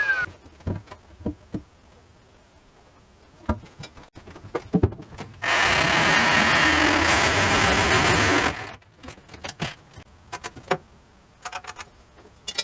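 Scattered knocks and clicks, then a power saw runs for about three seconds in the middle, cutting, and stops; a few more knocks follow.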